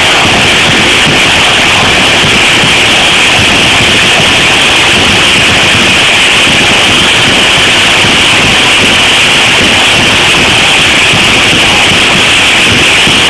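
Loud, steady stadium crowd noise, an unbroken roar of many voices, harsh and distorted from overloading the recorder.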